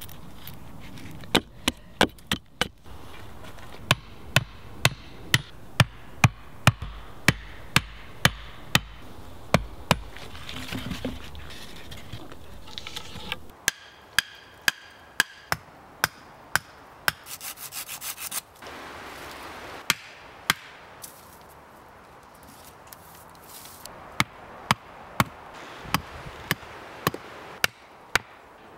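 Hand tools working wood: several runs of sharp chopping or knocking blows into wood, about two a second, with scraping and rubbing between the runs.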